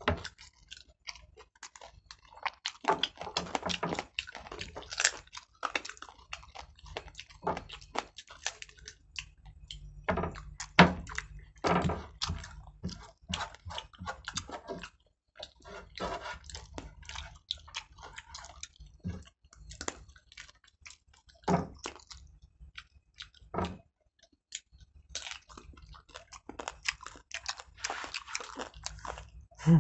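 Close chewing and wet mouth noises of people eating chicken pulao by hand: irregular short smacks and clicks with brief pauses, one louder smack about eleven seconds in.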